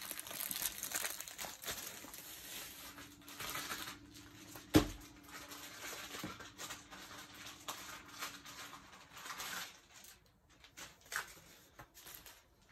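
Plastic wrapping crinkling and rustling as a rolled diamond painting canvas is unwrapped and handled, with one sharp knock about five seconds in.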